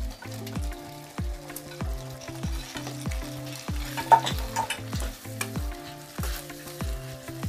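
Fried chicken pieces going into a simmering chilli sauce and being stirred through it with a wooden spoon in a metal pan, the sauce sizzling, with a sharp knock of the spoon about four seconds in. Background music with a steady beat plays under it.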